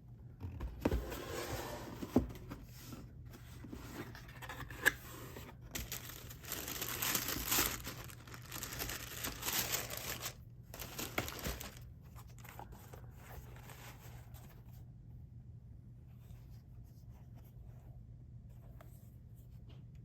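Cardboard shoe box and paper being handled: crinkling and rustling, with a few sharp knocks in the first five seconds. The handling fades to faint, sparse sounds about three-quarters of the way through.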